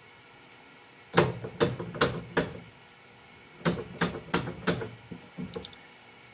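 A run of sharp clicks and knocks close by: hands loosening the lathe's 5C collet and resetting a drill bit in it. Four quick knocks come about a second in, then a second run of five or six, with fainter taps near the end.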